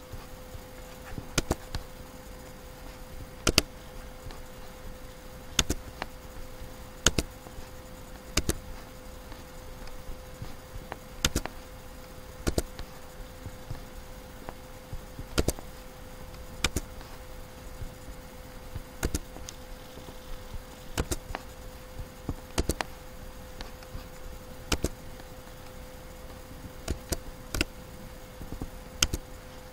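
Computer mouse clicks, single and in quick pairs, coming irregularly every second or two over a steady faint hum.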